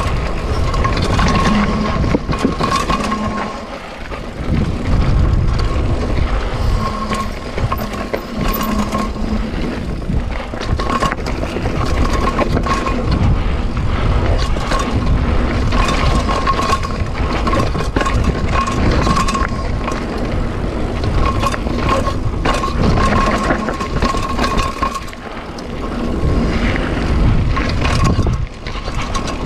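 Mountain bike riding fast down a dirt and gravel trail: tyres rumbling over the ground with wind buffeting the microphone, and frequent sharp clicks and rattles from the bike over bumps. A steady high buzz comes and goes throughout.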